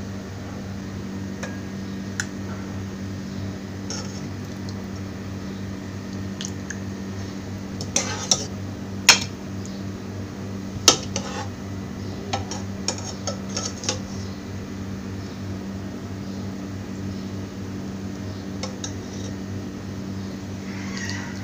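Ladle clinking against a cooking pot and a ceramic plate as fish curry is served, a run of sharp clinks in the middle, over a steady low hum.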